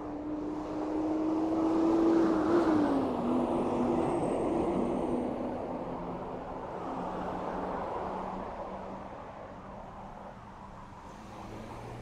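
A car driving past, its tyre and engine noise swelling to its loudest about two seconds in, with a steady engine tone that drops in pitch as it goes by. A second, quieter vehicle passes a few seconds later.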